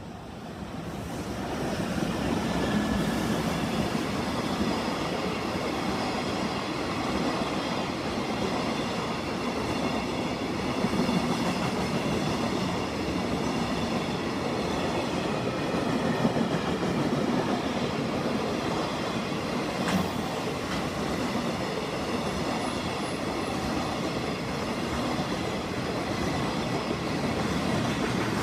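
Electric freight train passing through a station at speed: a steady noise of steel wheels running on the rails as the container wagons go by. It grows louder over the first two seconds as the locomotive arrives, then holds steady, with one sharp click about twenty seconds in.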